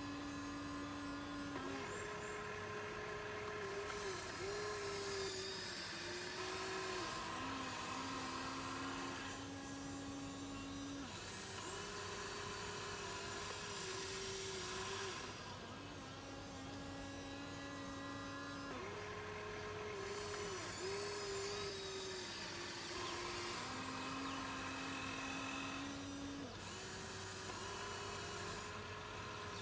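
Small electric motors of a Huina 1593 RC excavator whining as its functions are worked in turn, the pitch stepping between a higher and a lower tone every few seconds in a repeating cycle, with a hissy buzz over it.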